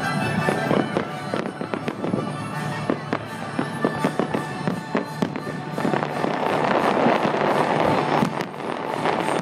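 A fireworks finale barrage: aerial shells bursting in rapid succession, many bangs a second through the first six seconds, then merging into a thicker continuous din. Music from the show plays underneath.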